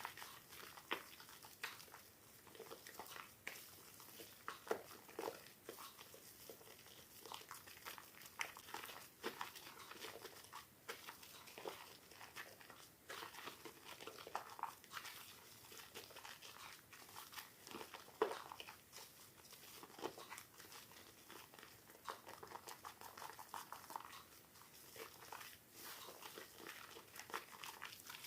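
Soaked soap being worked by hand, making soft, irregular crackling and crunching.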